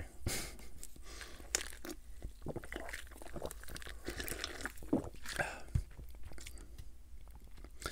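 Close-miked drinking from a cup of iced soda: quiet sips and swallows with scattered small clicks and crunchy mouth sounds, a few sharper clicks standing out.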